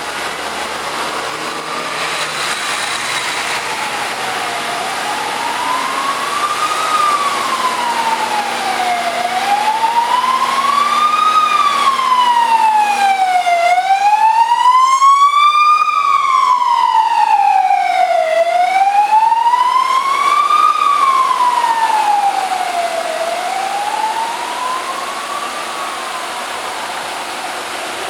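Fire engine siren wailing in a slow, steady rise and fall, each sweep taking about four to five seconds. It grows louder toward the middle and then fades again.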